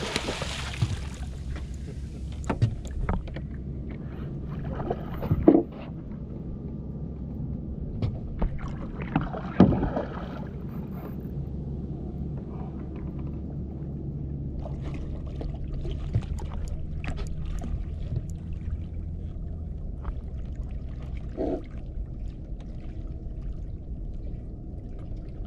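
Boat's engine idling with a steady low hum, with a brief rush of noise at the start and a few sharp knocks, the loudest about five and a half and ten seconds in.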